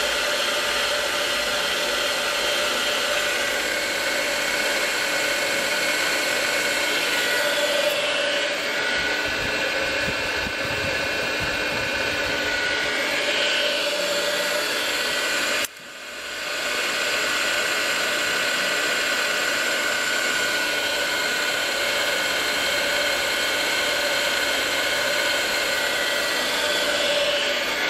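HBM BF 45 Profi drilling and milling machine running with its spindle turning: a steady mechanical whine made of several fixed tones over a hum. About halfway through the sound drops off sharply and builds back up within a second.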